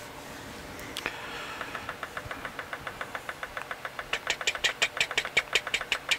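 A 386 PC ticking rapidly and evenly during its BIOS memory count at boot, about five or six ticks a second, growing louder in the second half; a single sharp click comes about a second in.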